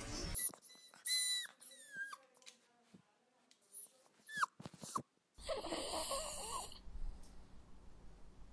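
A puppy whimpering: several short, high whines, most of them falling in pitch. They give way about five seconds in to a rough, breathy sound that carries on.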